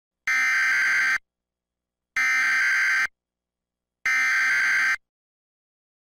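Emergency Alert System SAME header: three identical buzzing digital data bursts, each just under a second long, about two seconds apart, carrying the coded severe thunderstorm warning.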